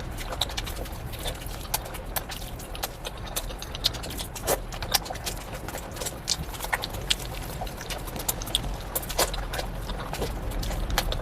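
Close-miked eating sounds of someone chewing biryani: wet chewing and lip smacking, an irregular run of quick clicks.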